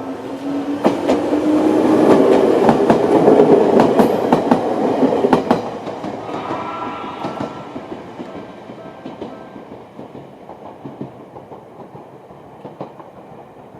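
Ueda Electric Railway 1000 series electric train passing over the level crossing: a rising motor whine and a run of wheel clacks over the rail joints, loudest a few seconds in, then fading as it moves away. The crossing warning bell rings faintly underneath at first.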